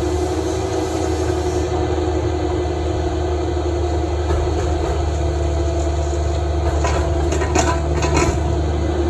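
Cat 305 mini excavator's diesel engine running steadily, heard from the machine, with a few sharp clanks about seven to eight seconds in.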